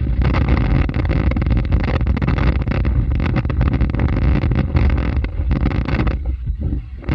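Howling wind buffeting the outdoor webcam's microphone: a loud, deep rumbling rush that comes in gusts and eases about six seconds in.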